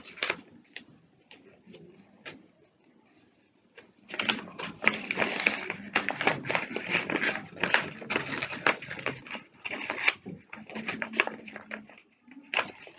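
Sheet of paper being folded and creased by hand, origami-style: a few light rustles at first, then dense crackling and rustling from about four seconds in to about ten seconds, tapering off with scattered rustles near the end.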